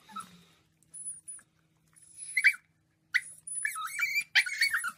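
Husky puppy whining in several high-pitched, wavering cries, short at first and longer and louder in the second half.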